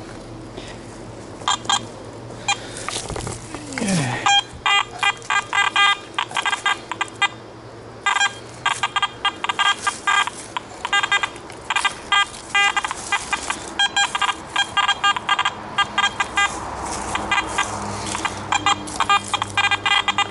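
Garrett AT Gold metal detector giving quick, irregular clusters of short electronic beeps as its coil is swept over ground full of iron nails and scrap. A single falling tone sounds about three seconds in.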